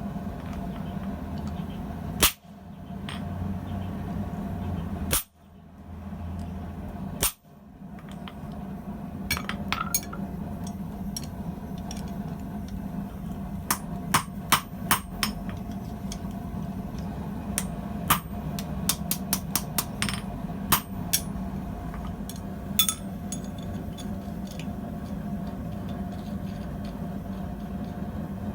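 Blacksmith's hammer striking hot steel tubing on an anvil: a few single blows at first, then a run of irregular blows, over a steady low hum.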